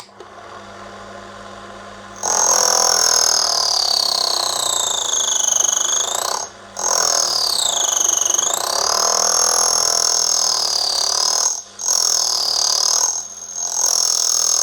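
Small lathe motor running, then from about two seconds in a loud, high screech of the cutting tool chattering against the brass disc's knurled rim. The pitch wanders up and down, and the screech breaks off briefly three times. The tool is not cutting cleanly and the lathe is struggling with the cut.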